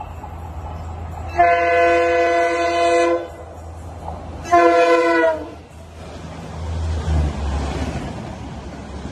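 Diesel locomotive sounding its multi-tone air horn twice as it approaches: a long blast, then a shorter one that drops in pitch at its end, over the low drone of its engine. The train then rushes past with a growing rumble and rush of the coaches.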